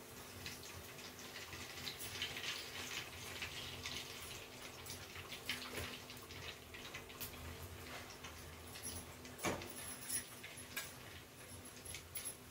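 Kakara pitha deep-frying in hot oil in a steel kadai: a light sizzle with scattered crackles and pops, and one sharper click about nine and a half seconds in.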